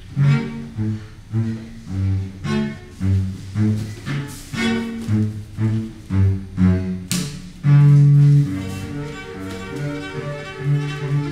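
Solo cello playing a string of short, separate low notes, about two a second, then a long held note about eight seconds in, followed by slower sustained notes.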